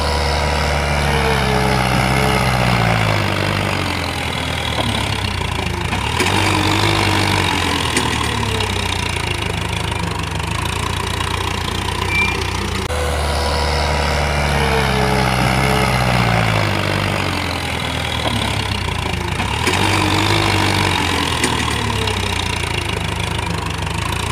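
A recording of a tractor engine running, with its pitch falling away in long sweeps. The same sound loops about every 13 seconds.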